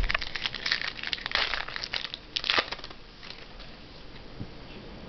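Crinkling and rustling of trading cards and their plastic or foil packaging being handled, busiest for the first three seconds and then quieter.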